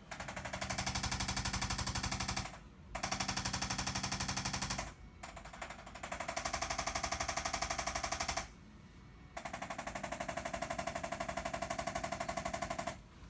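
Handheld percussion massager running in four bursts of a few seconds each with short pauses between, a rapid even pulsing.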